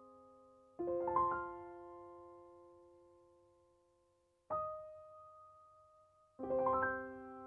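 Background piano music: three slow chords, some with their notes rolled upward, each left to ring and fade.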